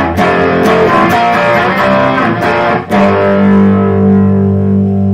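Electric guitar played with distortion, strumming a pop-punk chord riff. After about three seconds of quick strummed chords, a single chord is struck and left ringing.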